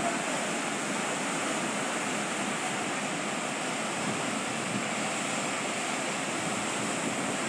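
Rough sea breaking as heavy surf against a rocky shore: a steady rushing wash of noise with no single crash standing out.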